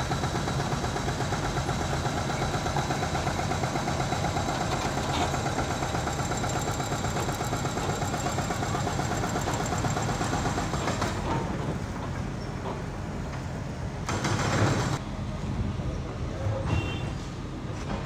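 Bitumen distributor truck's engine running steadily while it sprays prime coat. About eleven seconds in the sound drops to something quieter, with a short louder burst a few seconds later.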